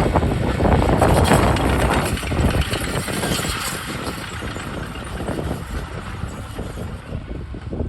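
Diesel engine of heavy earthmoving machinery running, loudest for the first two seconds and then gradually quieter.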